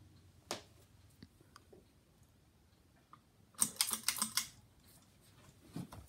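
Ceiling fan running with a faint steady hum and scattered light clicks, then a burst of rapid clicking and rattling about three and a half seconds in that lasts about a second.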